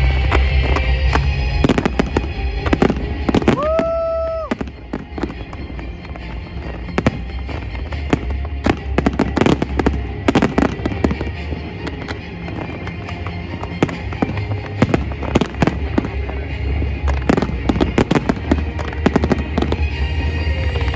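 Fireworks display: repeated sharp bangs and crackling shell bursts over a low rumble. About four seconds in, a whistle-like tone rises and then holds for about a second.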